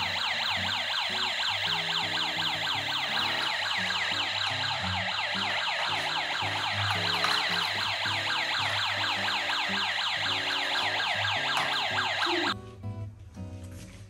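Battery-powered toy emergency car playing its electronic siren, a fast string of falling wails repeating several times a second over a simple beeping tune. It cuts off suddenly about two seconds before the end, leaving faint background music.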